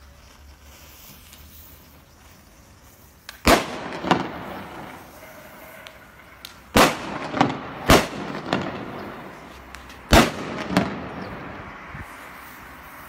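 A hanging string of red firecrackers going off: after a few seconds of low hiss, about eight loud, sharp bangs at irregular intervals, several in pairs about half a second apart, with a hiss between them.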